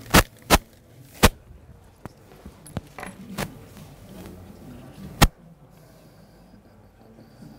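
A handful of sharp clicks and knocks from things being handled at a table: three loud ones in the first second and a half, a few fainter ones, and another loud one about five seconds in.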